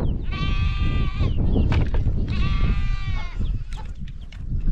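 Goats bleating: two long calls of about a second each, a second apart, over a steady low rumble.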